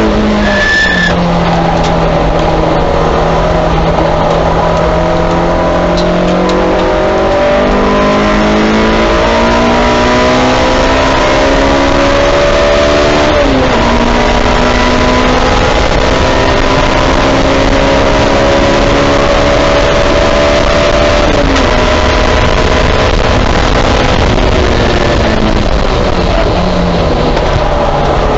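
Honda S2000 race car's four-cylinder engine heard from inside the cockpit at speed. The revs climb for several seconds, drop sharply at an upshift about halfway through, climb again, then fall off in steps near the end as the car slows for a corner.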